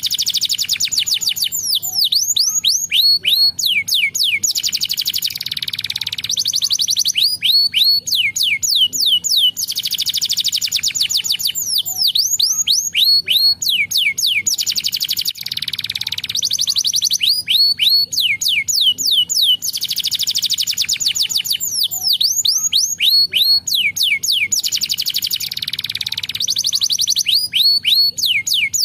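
Domestic canary singing continuously: runs of quick falling whistled notes alternate every few seconds with fast rolling trills.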